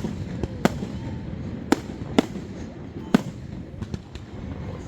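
Fireworks display, aerial shells bursting: a sharp bang about every second at uneven intervals, five in all, over a steady low rumble of the show.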